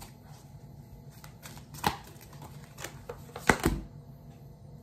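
Tarot cards being shuffled and handled to draw a card: light scattered taps with a sharp click about two seconds in and a louder pair of clicks near the end.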